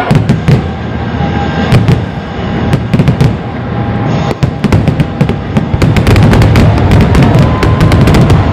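Fireworks going off, with sharp bangs scattered at first and then a dense, rapid crackle of reports in the second half, over background music.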